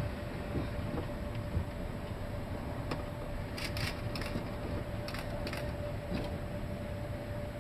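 Steady low rumble with a faint constant hum, and scattered light creaks and clicks from a ship's structure working in heavy seas.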